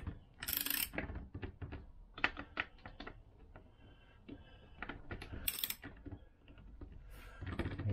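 Socket ratchet wrench clicking in short irregular runs as it turns the nut of a home-made puller drawing a Vespa PX crankshaft into the engine case, with metallic clinks of tools against the casing.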